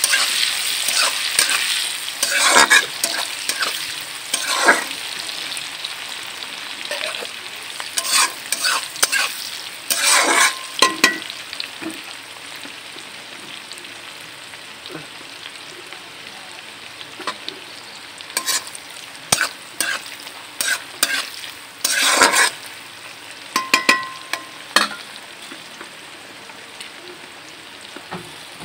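Sliced onions frying in hot oil in a metal kadai with dried red chillies and nigella seeds, sizzling steadily as they are browned. A spatula scrapes and stirs against the pan in short clusters of strokes. The sizzle is loudest at first and settles lower after about ten seconds.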